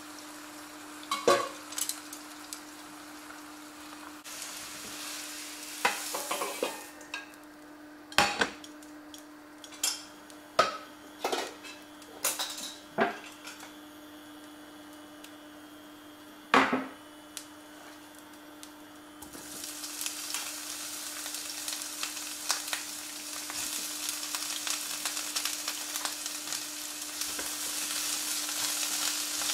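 Sliced green peppers frying in oil in a pan, a sizzling hiss that starts about twenty seconds in and grows as they are stirred with chopsticks. Before it come scattered clinks and knocks of a metal bowl, pan and utensils, over a steady hum.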